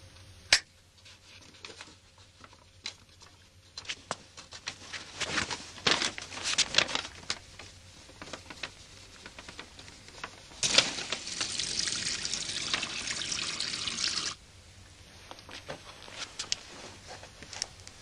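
Paper crackling as a letter burns over a bathroom sink, with scattered sharp clicks. Then a tap runs into the sink for about three and a half seconds and is shut off suddenly.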